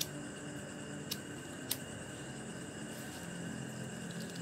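A few sharp clicks of a cigarette lighter being struck, three times in under two seconds, over a steady faint hum and hiss.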